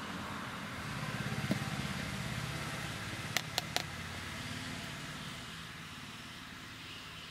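A motor vehicle engine running, its low pulsing hum swelling about a second in and then slowly fading away. Three quick sharp taps come a little past halfway.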